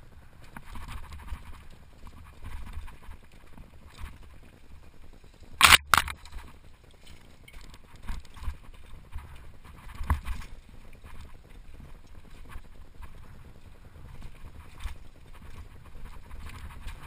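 Mountain bike rattling and knocking over rocky singletrack, picked up through a handlebar-mounted camera, with a low rumble underneath. Two sharp, loud knocks come just under six seconds in, and smaller ones around ten seconds.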